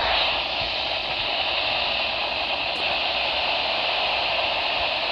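Steady radio static: an even hiss from a weather radio receiver with no voice on the channel between alert broadcasts.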